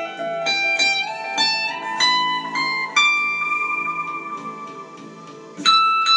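Electric guitar playing ambient music: single plucked notes climb in pitch over the first three seconds, then one note is held and rings on, and a new note is struck near the end, all over a steady low drone.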